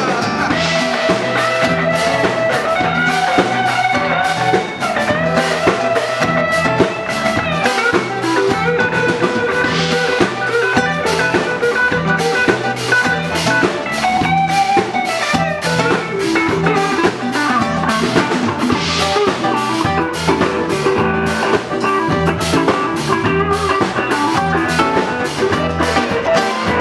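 Live blues band playing: electric guitars and bass over a drum kit keeping a steady beat, with a sustained lead line that bends in pitch.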